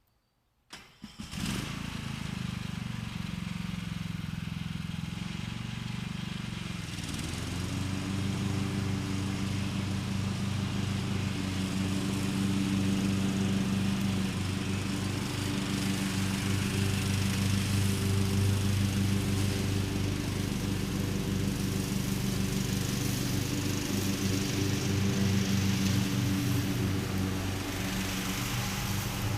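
An engine running steadily, starting suddenly about a second in and stepping up in pitch about seven seconds in.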